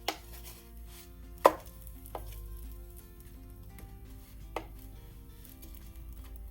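About five sharp clacks of kitchen utensils, the loudest about one and a half seconds in, as crêpe batter is ladled and the tools are handled.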